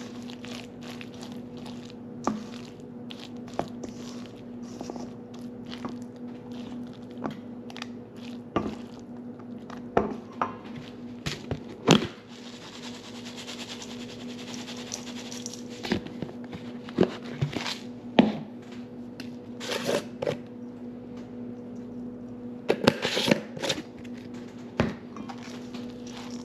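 Silicone spatula stirring and scraping a thick, crumbly oat mixture in a stainless steel mixing bowl, with irregular sharp knocks and scrapes against the metal. About twelve seconds in, a short rustling rush as oats are poured into the bowl from a canister. A steady low hum runs underneath.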